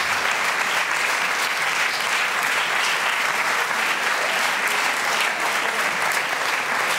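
Audience applauding, a dense, even clapping that holds at a steady level.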